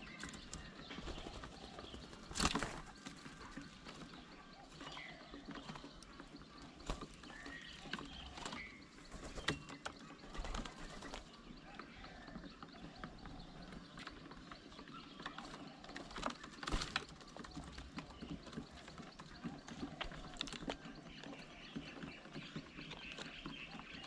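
Faint outdoor bird sounds: scattered short chirps with small taps and ticks, and three sharper knocks spread through.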